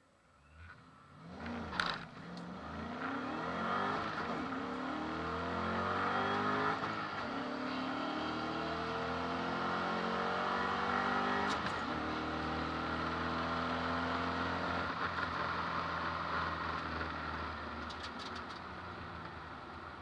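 Ford Mustang's engine at full throttle on a drag-strip pass, heard from inside the cabin. There is a sharp loud burst at the launch about two seconds in. The pitch then climbs through each gear and drops at each shift, and the engine eases off and fades near the end as the car lifts.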